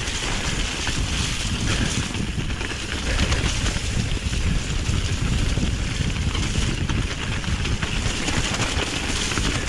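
Steady wind buffeting the microphone over a constant low rumble, without a break.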